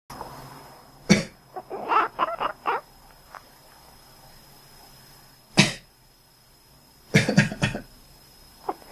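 A person coughs and a cat answers with a quick run of short quacking chirps. This happens twice: a cough about a second in, then a cough past the middle, each followed a moment later by the cat's calls.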